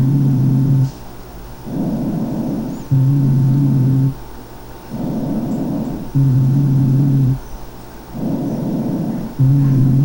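Rhonchi on auscultation of the chest: about four breaths, each inspiration a plain rush of air and each expiration carrying a coarse, low, steady musical tone. Rhonchi come from air passing larger airways narrowed by secretions, and are very common in chronic bronchitis.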